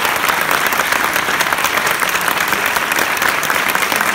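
Audience applauding steadily: many hands clapping at once in an even, dense patter.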